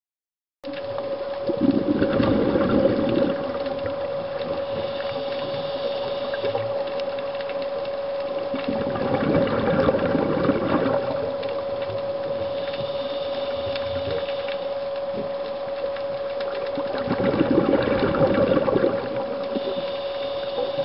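Underwater sound of a scuba diver's regulator: exhaled bubbles rush out three times, about eight seconds apart, over a steady hum.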